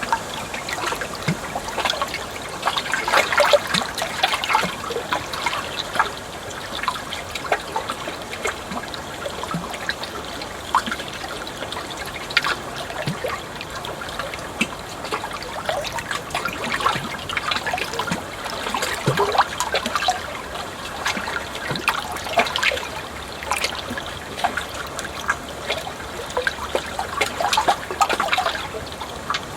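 Water trickling and babbling continuously, full of small bubbling plops, swelling a little louder now and then.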